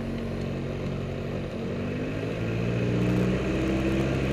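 Piper Archer II's four-cylinder Lycoming O-360 engine and propeller running at low taxi power, heard from inside the cockpit. About two seconds in the engine speeds up, its note rising and getting louder.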